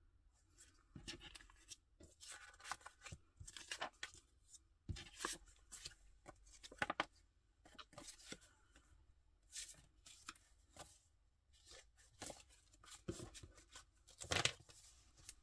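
Loose sheets of old book paper rustling and flapping as they are leafed through, shuffled and set down, in many short irregular bursts, the loudest near the end.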